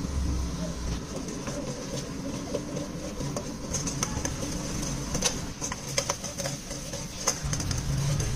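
Brown liquid bubbling and sizzling in an aluminium pot while a steel ladle stirs it. The ladle scrapes the pot and knocks sharply against it a few times in the second half. A steady low hum runs underneath.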